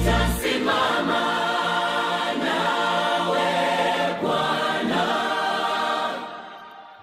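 Background gospel music: a choir singing held notes, fading out near the end.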